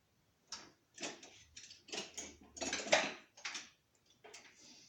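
Small hand tools clicking and scraping against metal, about eight short, sharp knocks and scrapes over a few seconds.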